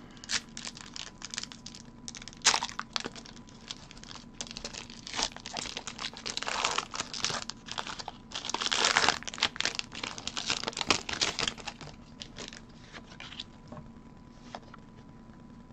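Foil Pokémon booster pack wrapper being torn open and crinkled by hand: irregular crackling rustles, busiest in the middle and thinning out over the last few seconds.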